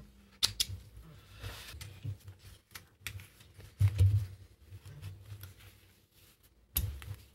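Scattered clicks, rustles and a few soft thumps of nylon webbing being handled and lined up under the presser foot of an industrial sewing machine, with no stitching.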